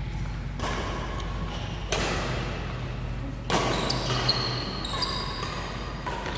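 Badminton rally: a shuttlecock struck by racquets about three times, each hit ringing on in the hall, with shoes squeaking on the court floor about two-thirds of the way through.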